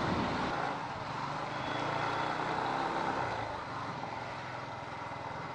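Motorcycle engine running under way, a TVS Apache RTR 180's single-cylinder engine, with wind and road noise; the engine note swells slightly and then eases off in the second half.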